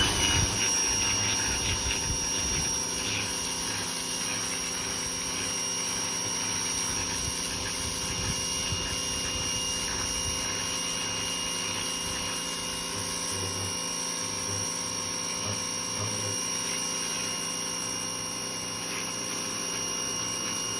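Ryobi 2000 PSI electric pressure washer running steadily at full speed, its motor and pump giving a high, steady whine over a hiss of water spray.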